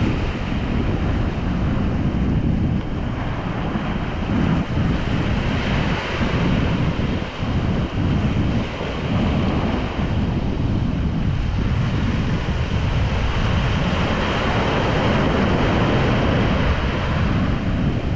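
Ocean surf breaking and washing onto a beach, swelling and easing, with wind rumbling on the microphone.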